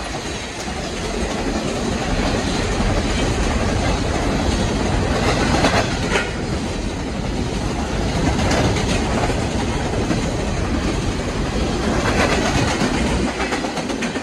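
Freight train cars rolling past at high speed: a loud, steady rumble with scattered clicks from the wheels.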